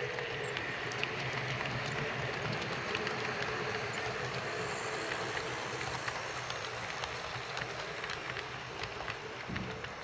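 HO-scale model steam locomotive running on track: a steady motor and gear hum with a scatter of irregular clicks from the wheels over the rails.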